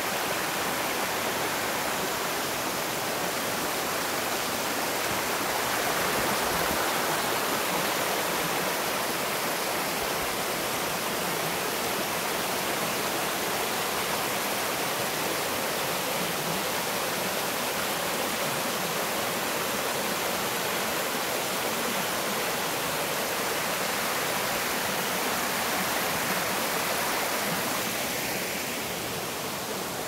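Mountain stream rushing steadily over rocks and through shallow rapids, a continuous rush of water that softens a little near the end.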